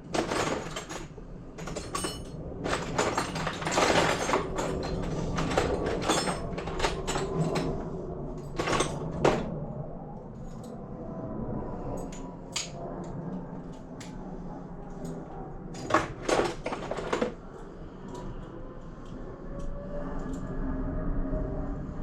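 Metal hand tools clinking, tapping and scraping as a T-bar Allen key is worked on a Brompton folding bike's hinge fitting. The sharp clicks come thick and fast in the first half, thin out later, and return as a short cluster of knocks past the middle.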